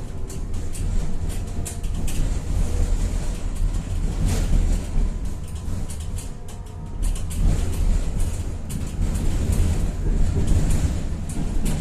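Tatra-Yug K1M tram in motion, heard from inside the car: a steady low rumble of wheels and running gear with clicks and rattles. The noise drops briefly a little past the middle, then picks up again.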